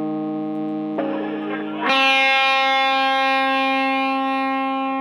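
Electric guitar played through distortion and effects, holding sustained chords; the chord changes about a second in, and a louder new chord is struck about two seconds in and rings on.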